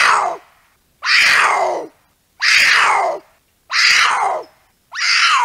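A puma calling: a run of five harsh cries, each sweeping down in pitch and lasting under a second, coming about once a second.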